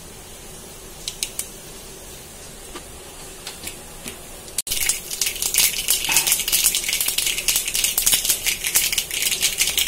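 Mustard seeds spluttering in hot oil in a pan. A few faint pops at first, then, about halfway, a sudden dense crackle of rapid popping.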